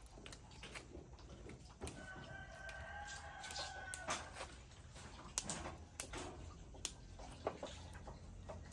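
A rooster crowing once, a held call of about two seconds starting about two seconds in. It is followed by a few sharp clicks and knocks.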